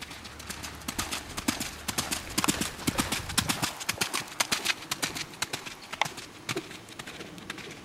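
Hoofbeats of a Welsh pony trotting on wet arena footing, a quick, even run of dull thuds that thins out near the end.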